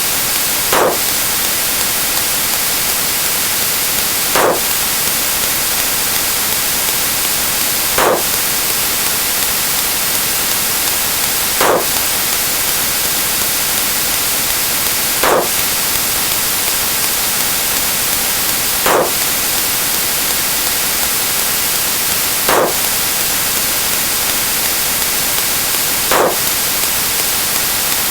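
Steady loud hiss like radio static or white noise, with a short blip rising through it about every three and a half seconds, eight times.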